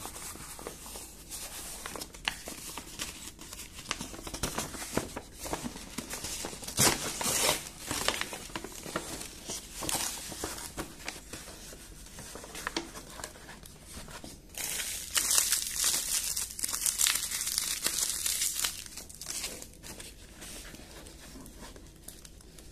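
Brown kraft paper mailer being torn open and crumpled by hand, in irregular rustling spells, loudest about seven seconds in and again from about fifteen to nineteen seconds.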